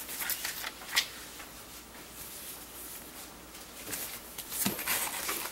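Hands handling a smartphone and its packaging on a table: a light tap about a second in, then a brief rustle near the end.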